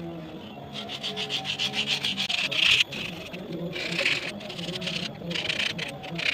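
Quick, repeated scraping strokes worked back and forth over a hard surface, swelling louder about every second and a half.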